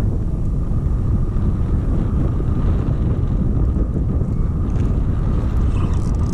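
Wind buffeting the microphone on an open boat: a steady low rumble with a faint steady high tone above it.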